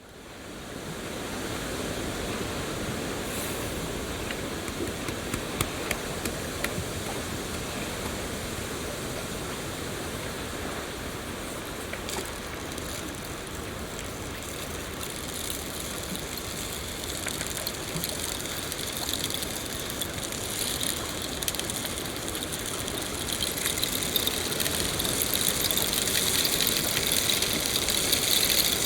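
Steady falling rain with scattered ticks of individual drops. It fades in at the start and grows louder, with a denser high crackle of drops, over the last third.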